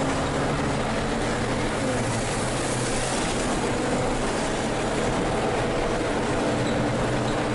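Inside a Volvo B12M bi-articulated bus under way: the diesel engine running steadily under the cab noise, with road and body rumble and faint whining tones that come and go.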